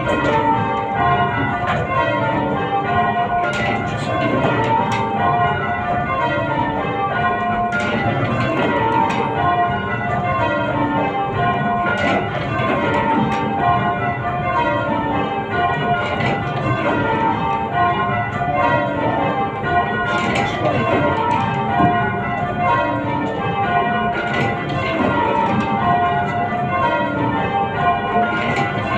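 A ring of eight church bells rung full-circle in change ringing, just after the call to start. The strikes fall in evenly paced descending rows from treble to tenor, about one row every two seconds.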